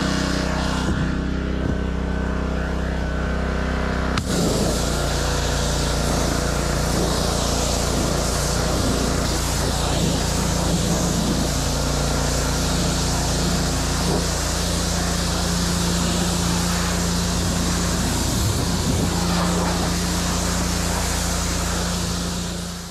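Gas-engine pressure washer (Black Max) running steadily under load, with the hiss of the high-pressure water spray joining in about four seconds in and carrying on as the spray blasts the boat's deck and carpet.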